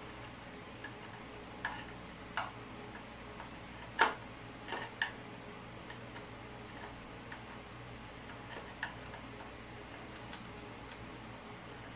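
Scattered light clicks and taps of plumbing tools and fittings being handled, irregular, with the sharpest knock about four seconds in.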